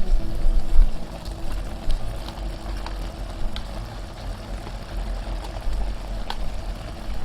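Food cooking in a pan on the stove: a steady low rumble with a light hiss, and a few sharp clicks of a utensil against the pan.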